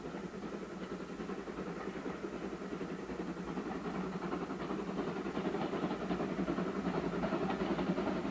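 LBSCR Terrier 0-6-0 tank engine working steam as it propels a single coach in push-pull mode, its exhaust beats and the wheels running on the rails growing steadily louder as the train approaches.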